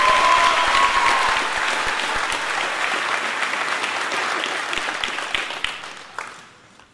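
Audience applauding, with a brief held high note from the crowd about the first second, then the clapping dies away near the end.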